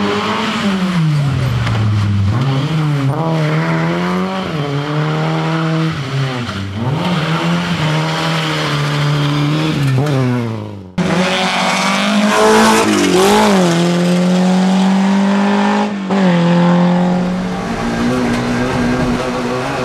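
Racing car engines revving hard, the pitch climbing and dropping again and again through gear changes and lifts. About eleven seconds in the sound cuts abruptly to another car's engine revving the same way.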